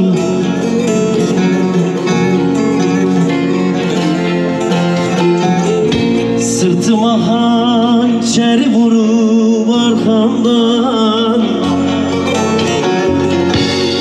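Turkish folk music, with a plucked string instrument carrying the melody over a steady accompaniment.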